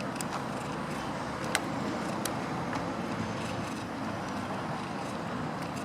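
Steady outdoor background noise with a traffic-like hum, broken by a few short sharp clicks.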